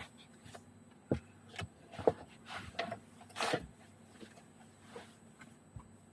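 A string of irregular light clicks, knocks and brief rustles, about a dozen, the loudest around two and three and a half seconds in, over a faint steady low hum.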